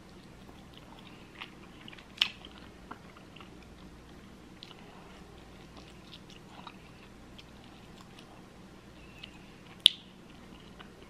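Close-miked chewing and biting of a chicken wing: small wet mouth clicks throughout, with two sharp, louder clicks about two seconds in and near the end.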